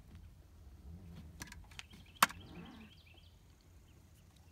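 Crickets chirping in short, rapidly repeated pulses, with a few small clicks and one sharp click a little over two seconds in.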